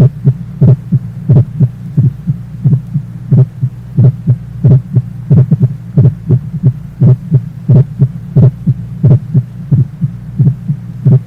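Heart sounds recorded through a stethoscope over the mitral area, beating evenly at about 90 a minute over a steady low hum. The first heart sound is split into two close parts, a normal finding.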